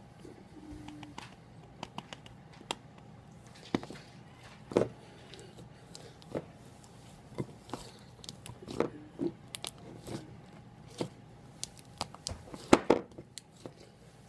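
Hands kneading and stretching slime: irregular sticky clicks and wet pops, the loudest cluster near the end.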